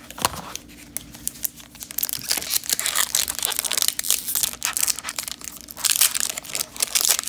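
Foil wrapper of a hockey card pack being torn open and crinkled by hand: dense, irregular crackling that grows busier and louder about two seconds in.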